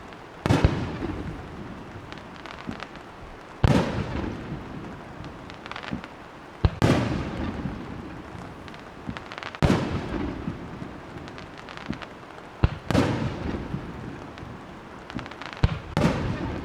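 Firework shells bursting overhead, six sharp bangs about every three seconds, each trailing off in a fading rumble.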